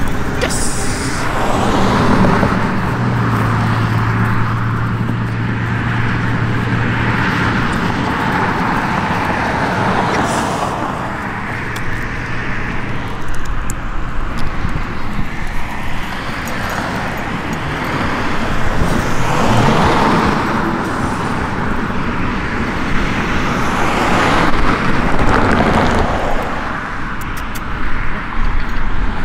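Road traffic: several cars passing one after another, each pass swelling and fading, with a low steady engine hum for a few seconds near the start.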